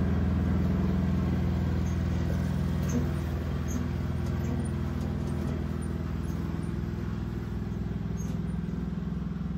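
Small tractor's engine running steadily, easing slightly quieter about three seconds in.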